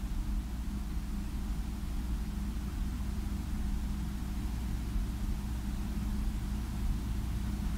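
A steady low hum with an even hiss over it, unchanging throughout, with no distinct knocks or voices.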